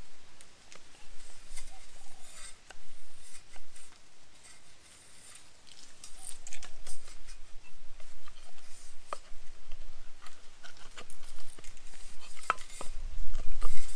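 Light, irregular clicks and taps, like utensils and food being handled, with a low rumble coming in near the end.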